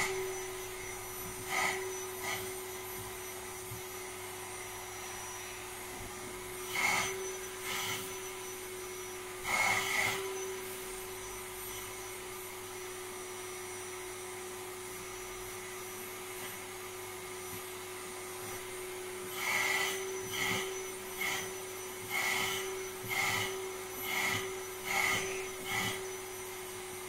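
Vacuum cleaner running steadily with a constant whine, its hose nozzle worked over a dog's short coat. Brief louder rushes of air come a few times in the first ten seconds and in a quick run near the end as the nozzle moves through the fur.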